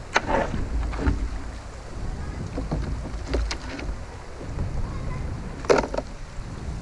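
Kayak running a shallow, rocky riffle: a few sharp knocks and splashes from the paddle and hull, about four in all, over a steady low rumble of moving water.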